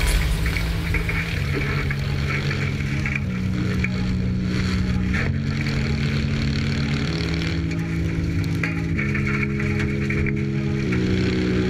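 Engine of a 2CV cross race car running, heard inside its caged cabin, with rattling and gravel noise. Held low notes change in even steps about every two seconds, likely a dance-music track laid over it.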